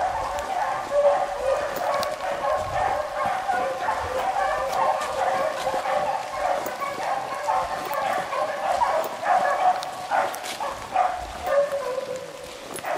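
A pack of beagles baying together without a break, several hound voices overlapping, as they run a rabbit's track.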